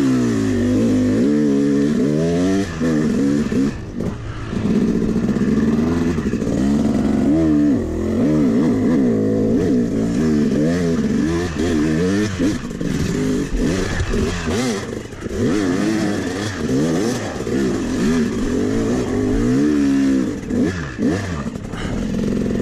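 Yamaha YZ250 two-stroke dirt bike engine revving up and down again and again as the throttle is worked through sandy ruts, with a few short dips where the throttle is shut off.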